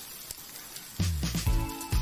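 Egg frying in oil in a wok, a faint even sizzle. About halfway through, background music with a deep bass line starts and drowns it out.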